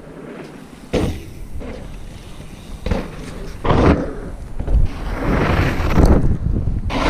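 Mountain bike riding over a gravel and dirt trail, heard on an action camera: tyre noise and a low rumble that set in about a second in, with several sharp knocks and rattles from the bike.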